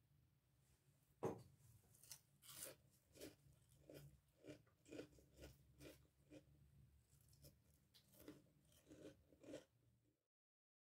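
Crispy breadcrumb-coated fried onion rings crunching: one sharp crack about a second in, then a steady run of crunches about twice a second. The sound cuts off suddenly near the end.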